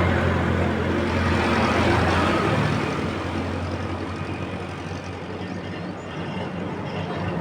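A motor vehicle engine running with a steady low hum and hiss, fading through the middle and swelling again near the end.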